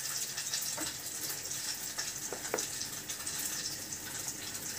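Crucian carp frying in hot oil in a pan: a steady sizzling hiss, with a couple of faint clicks.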